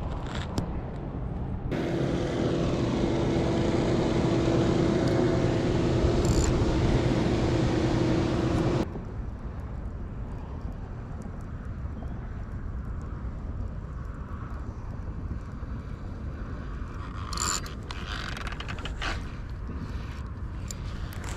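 An engine running steadily for several seconds and then cutting off abruptly, followed by quieter outdoor background with a couple of brief noises near the end.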